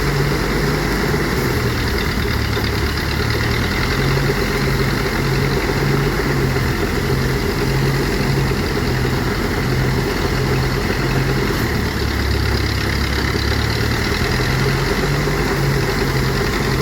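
Engine-driven rice threshing machine running steadily, with an even, repeating low pulse.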